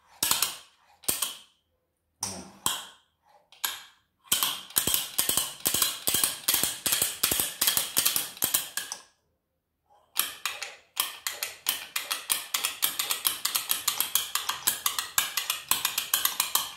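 Rapid, even ratchet-like clicking at a rotary vane compressor's rotor being worked by hand, about ten clicks a second. It comes in two long runs with a short break between them, after a few separate clicks at the start.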